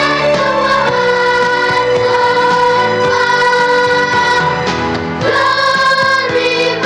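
A hymn sung in long held notes with instrumental accompaniment and a sustained bass line.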